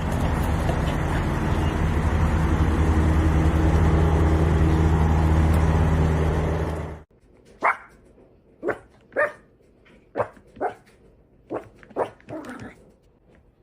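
A loud, steady mechanical hum that cuts off suddenly about seven seconds in, followed by a dog barking in a series of about eight short barks.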